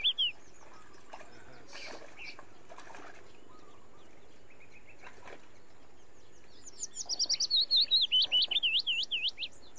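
A songbird sings quick runs of repeated whistled notes, about five a second, each sweeping in pitch. A short run ends just at the start, and a longer, louder run begins about seven seconds in and lasts nearly three seconds. In between there is only faint background noise with a few soft knocks.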